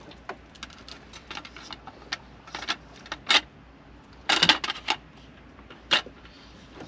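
Kenwood double-DIN head unit being pushed into its plastic dash-kit side brackets: a scatter of sharp plastic-and-metal clicks and knocks, louder around three seconds in, again about four and a half seconds in, and once near six seconds.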